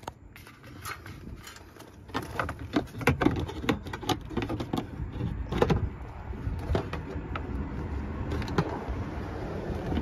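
Suzuki Swift Sport ZC33S's 1.4 L turbocharged four-cylinder running at idle, a low exhaust rumble heard close to the tailpipe that grows louder about two seconds in. Irregular light knocks and rustles sound over it.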